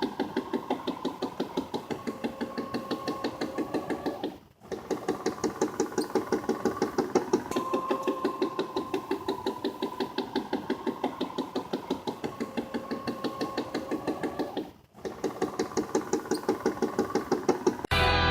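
Tailgater portable satellite antenna knocking fast and evenly, about five or six knocks a second, over a steady motor whine, with two brief breaks. The knock comes from the azimuth drive: its potentiometer has jumped its limit switch and the azimuth motor has worked loose in its mount.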